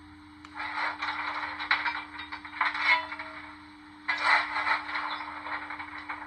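Stanier 8F steam locomotive sound effects from a Locoman DCC sound decoder, played through a small speaker in an OO-gauge model's tender. Irregular bursts of hiss and clatter come from about half a second in, again near three seconds, and from about four to five seconds, over a steady low hum.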